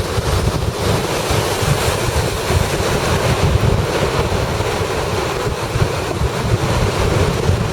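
Gale-force wind buffeting the microphone with a heavy, continuous rumble, over the rush of storm surf on Lake Superior.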